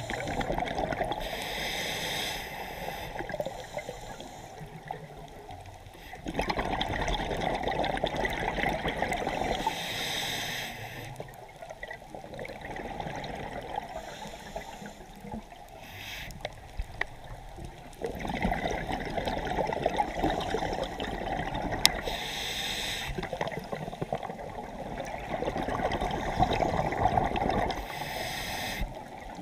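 Scuba diver breathing through a regulator underwater: a few slow breaths, each a short hiss of inhalation and a longer rush of exhaled bubbles.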